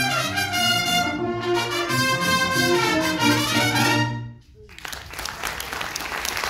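Brass band playing a lively tune that ends on a held final chord about four seconds in. After a brief gap, audience applause starts.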